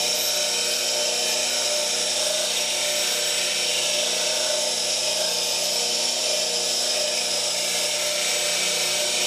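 Bench grinder running a CBN wheel, grinding the bevel of a steel bowl gouge: a steady high grinding hiss over the motor's hum.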